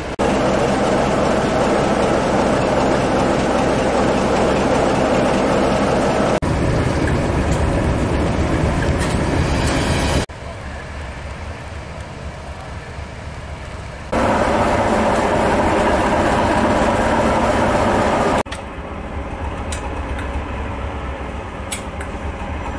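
Diesel locomotive engines running, in a string of short clips. The sound changes abruptly about every four seconds between louder, fuller stretches and quieter ones, with a few sharp clicks near the end.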